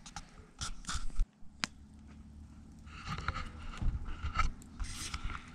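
Camera handling noise: fingers knocking and clicking on a small action camera as it is turned around, a run of sharp knocks in the first second and a half, then rustling and scraping.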